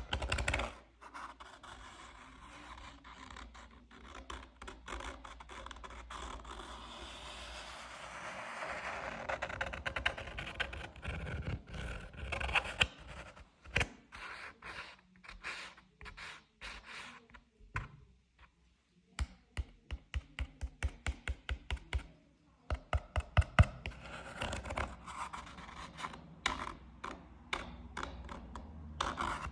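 Scratching on a loudspeaker's surface: stretches of rough, gritty scraping, then in the second half quick runs of sharp taps, about three or four a second.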